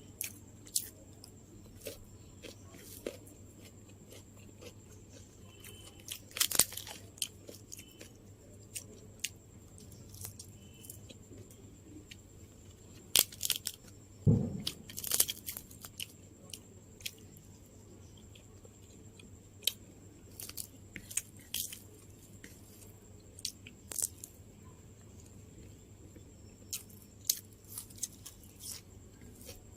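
Close-up eating sounds: a person biting and chewing crisp food, with scattered sharp crunches and mouth clicks separated by pauses. A single louder thump comes about fourteen seconds in.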